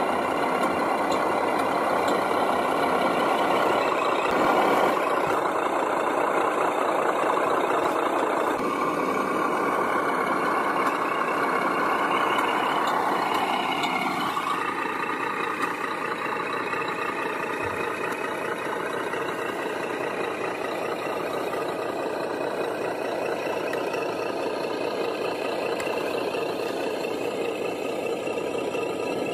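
Radio-controlled scale model Mercedes-Benz log truck driving under a load of logs: a steady motor running sound, with a whine that rises in pitch about halfway through.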